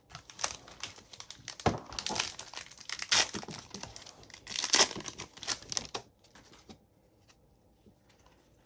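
Plastic-foil wrapper of an Upper Deck hockey-card pack crinkling and tearing as it is ripped open, a dense crackle of small sharp rustles that stops about six seconds in.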